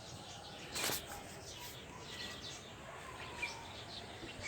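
Small birds chirping over and over against a faint outdoor background hiss, with a short burst of handling noise about a second in.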